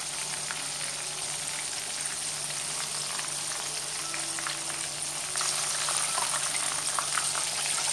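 Batter-coated chicken drumsticks deep-frying in sunflower oil in a cast-iron kadai over a low flame, giving a steady sizzle flecked with fine crackles. The sizzle grows a little louder about five seconds in.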